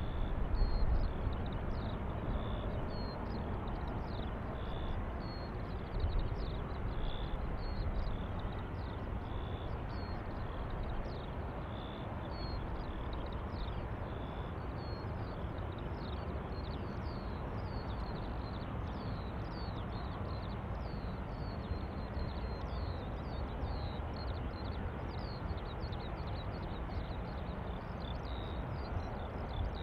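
Low, steady rumble of a distant Airbus A350-900 jet airliner, a little louder in the first second, with many short high chirps repeating over it throughout.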